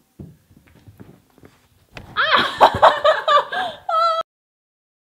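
A woman laughing loudly for about two seconds, the laughter ending in a short high wavering note.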